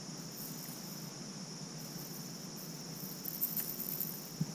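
Crickets trilling in a steady, continuous high-pitched chorus. Faint clicks and rustles come through in the last second or so.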